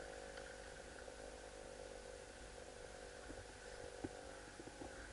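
Quiet, steady low hum with a few faint clicks, and one sharper single click about four seconds in, typical of airsoft guns firing during a skirmish.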